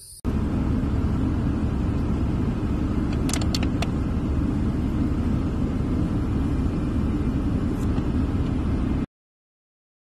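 Steady low rumble inside a car, with a few short clicks about three and a half seconds in. It stops abruptly about nine seconds in.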